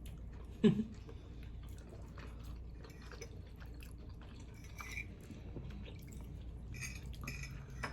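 Faint close-up eating sounds of a person chewing rigatoni pasta: soft wet mouth clicks and smacks. A short hum of the voice comes just under a second in.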